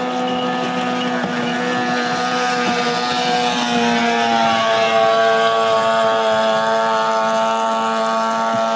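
Several 15 hp outboard motors on racing longboats running flat out in a steady, loud drone. Their pitch steps down slightly about halfway through, where the sound is loudest.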